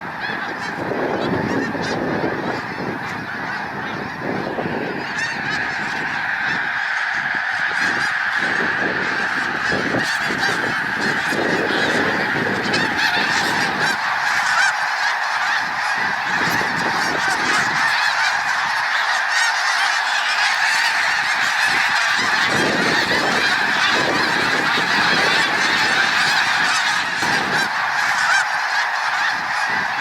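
A huge flock of thousands of snow geese calling without pause as it flies overhead: a dense, overwhelming chorus of overlapping honks.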